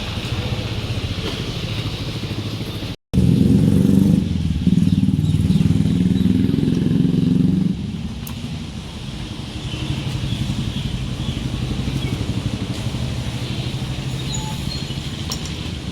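Motorcycle engine running steadily. After a short break about three seconds in, it runs louder for around four seconds, then settles back.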